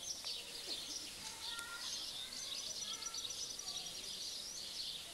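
Songbirds singing and chirping outdoors, with a fast trill of repeated high notes about two and a half seconds in, over a steady hiss.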